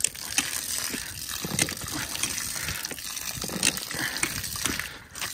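Water gushing out of the plastic wrapping on a load of pallets and splashing onto the wooden pallets and trailer deck, a steady pour with irregular splashes. The water has collected inside the wrapping.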